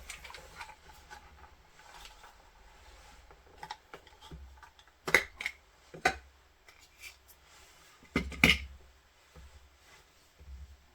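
Small clicks and scrapes of a nail drill bit being fitted into the handpiece and its locking collar twisted to clamp it, with a few sharper clicks about five, six and eight seconds in.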